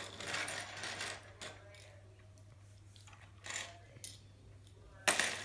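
Plastic K'nex construction pieces clattering and clicking as they are handled and sorted. A burst of rattling comes in the first second, scattered clicks follow, and a louder clack comes near the end, over a steady low hum.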